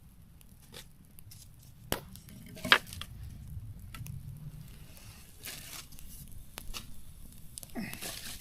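Sticks and kindling being handled and laid on a newly lit campfire, with scattered small snaps and crackles and two sharp cracks about two and nearly three seconds in, the second the loudest.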